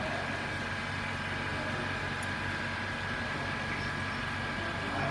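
Steady mechanical hum with a faint constant high whine, unchanging throughout.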